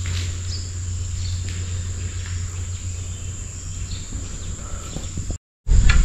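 Steady high-pitched insect drone over a low rumble, with a few faint chirps; the sound cuts out briefly near the end.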